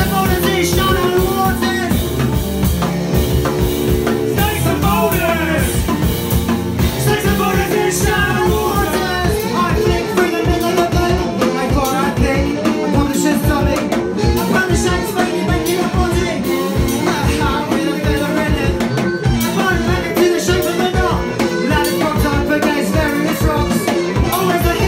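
Live indie-punk band playing a song, with electric guitar, a drum kit beating steadily, and singing.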